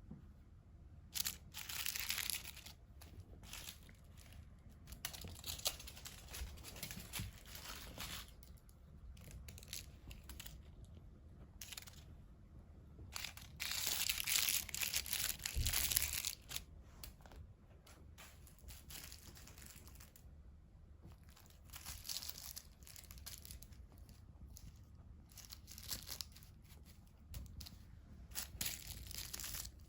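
Crinkly cat toy rustling in irregular spurts as a cat bats and plays with it, loudest for a couple of seconds midway.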